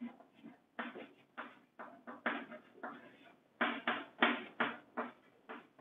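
Chalk writing on a chalkboard: a run of short, irregular scratching strokes and taps, a little louder from about three and a half seconds in.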